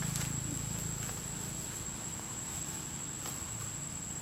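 Insects droning in one steady, high-pitched tone, with a few faint clicks.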